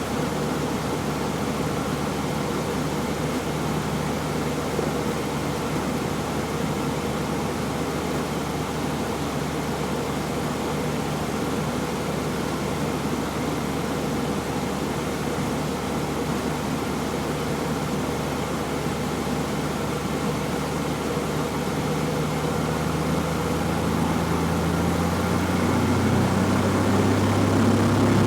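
Cessna 172F's six-cylinder Continental O-300 engine and propeller droning steadily, heard inside the cabin during slow flight. In the last few seconds the pitch rises slightly and it grows louder as power is added.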